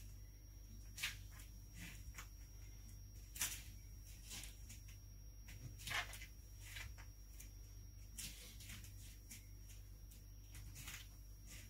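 Faint sounds of a person exercising: short breathy whooshes every couple of seconds as he repeats side lunges, over a steady low hum.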